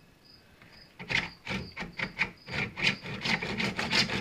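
Handsaw cutting into PVC pipe: after about a second of quiet, slow, separate rasping strokes start the cut, then quicken into fast, steady back-and-forth strokes near the end.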